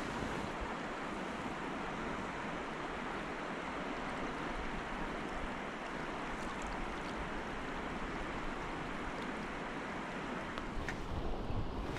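Steady rush of a fast-flowing river running high after rain, with wind buffeting the microphone near the end.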